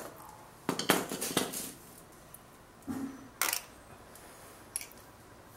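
Several sharp metallic clinks, about six spread over a few seconds, as a steel spark plug socket wrench and metal tools are picked up and handled at a small moped engine.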